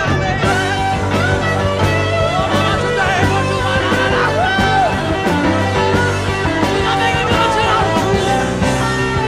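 Rock music: a psychedelic rock band jam with sliding, bending lead lines over steady bass and drums, played from a vinyl LP transfer.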